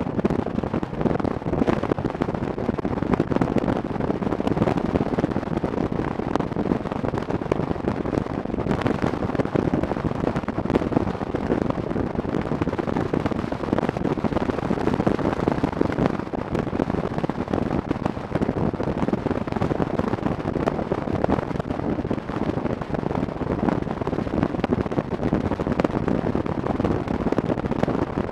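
Motorcycle engine and exhaust running steadily at cruising speed, heard through heavy wind buffeting on the microphone, a dense crackling noise without letup.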